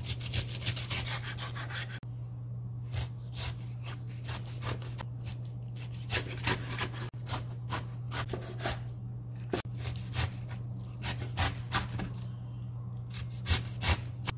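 Kitchen knife slicing through napa cabbage kimchi on a wooden cutting board: runs of quick cuts, each stroke crunching through the leaves and knocking on the board, with short pauses between runs.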